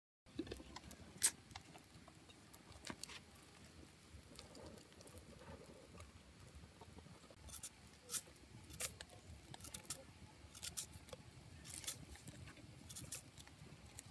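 Faint crackling of a wood fire burning under a clay cooking pot, with scattered sharp pops, and the rustle of green leaves being pressed into the pot's mouth.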